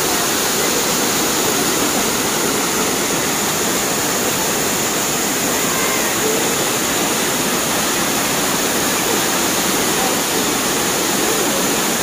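Waterfall pouring over rocks into a shallow pool: a steady, even rush of falling water.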